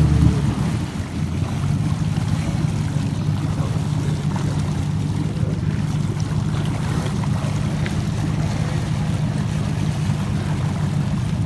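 Boat engine running with a steady low hum, with water noise over it.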